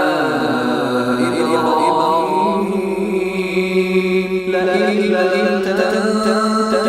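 A man reciting the Quran in a slow, melodic chant, drawing the notes out: the pitch bends at first, then he holds long, steady notes.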